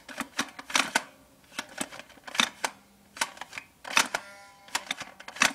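Air Zone Twin Tech 10 toy dart blaster being worked by hand: a string of irregular plastic clicks and clacks as the priming handle is pulled back and the rotating barrel indexes round. One click about four seconds in is followed by a brief ringing buzz.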